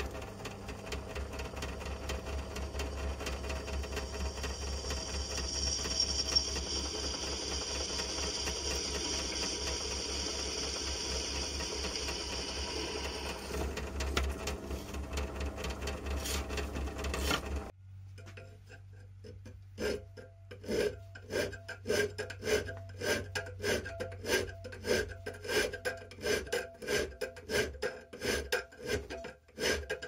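Bench drill press motor running while the bit drills a forged steel ring, with a high whine from the cutting between about 4 and 13 seconds. The drill stops suddenly about 18 seconds in, and steady hand filing on steel in a vise follows at about two strokes a second.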